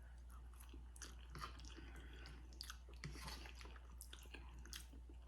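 Faint, close-miked chewing and wet mouth sounds of a person eating, with scattered small smacks.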